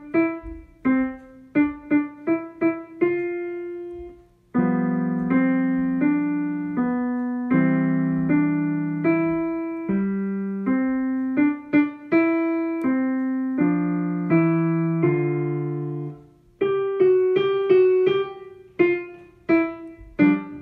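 Yamaha digital piano played with both hands, a simple beginner piece at a moderate tempo. It opens with short separate notes, pauses briefly about four seconds in, continues with low notes held under the melody, and returns to short separate notes near the end.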